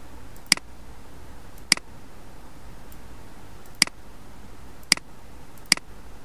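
Computer mouse clicking five times, single sharp clicks at uneven intervals, over a steady background hiss.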